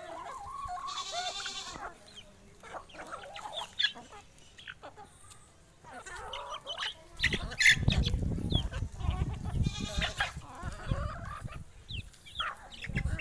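A flock of Aseel and Egyptian chickens calling and clucking as they peck at feed, with scattered short calls throughout. A louder low rumble comes in from about seven to eleven seconds in.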